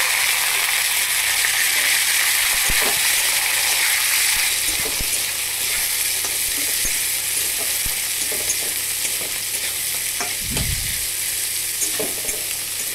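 Chopped vegetables (cauliflower, carrots, green beans) sizzling in hot oil in a kadai, being stirred with a metal spatula that ticks and scrapes against the pan. The sizzle is loudest at first and eases a little, with a dull knock about ten seconds in.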